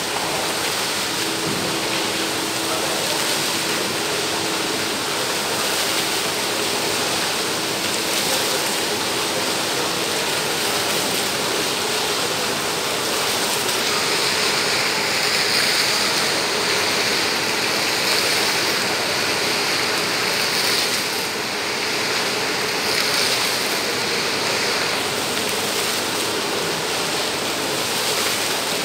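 Indoor fountain's water jets splashing into a pool, a steady rushing hiss that grows louder and brighter about halfway through.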